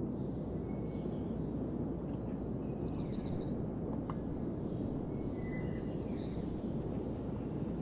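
Outdoor ambience: a steady low noise with a few bird chirps, about three seconds in and again near the end.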